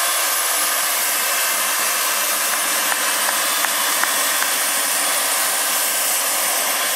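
Turbine-powered RC scale Super Puma model helicopter running on the ground: a steady high turbine whine over a dense rushing hiss, with the rotors still turning after touchdown.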